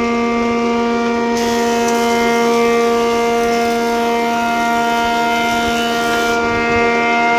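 Large woodworking planer-jointer machine running at full speed, a loud steady howl with a fixed pitch. A broad hiss joins about a second in and stops about a second before the end.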